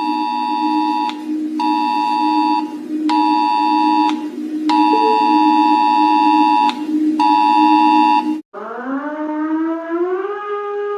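Emergency alert alarm tones: a steady low two-note drone under a higher beeping tone that switches on and off five times, the pulses about a second long with one about twice as long. About eight seconds in it cuts off, and a new siren tone starts low and rises in steps.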